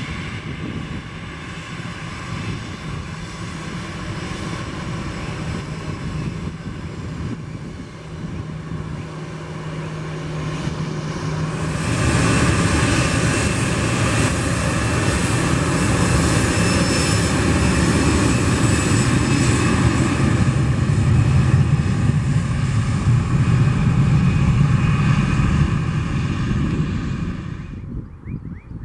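Airbus A320-family twin-jet engines on the runway, a steady engine whine and rumble. About twelve seconds in it turns suddenly much louder and fuller as the jet runs at take-off power down the runway, and it drops off sharply just before the end.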